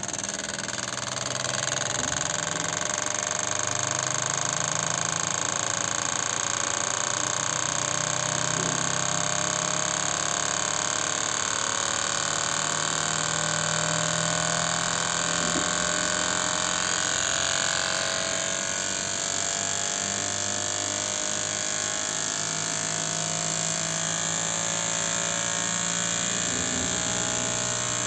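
Fuel-injector test stand running with Toyota Prius injectors being retested after ultrasonic cleaning: a steady mechanical hum and hiss, with a faint whine that slowly rises in pitch.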